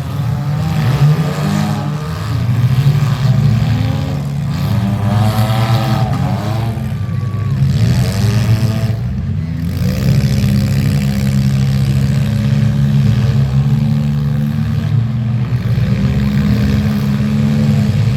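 Demolition derby car engines revving and running, rising and falling in pitch through the first half, then holding at a steadier pitch.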